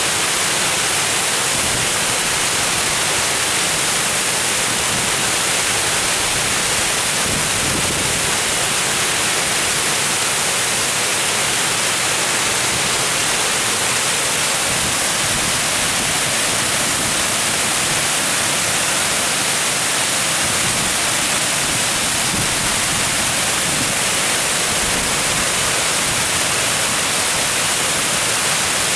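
Steady rushing hiss of water pouring and churning over a ledge, like a small waterfall.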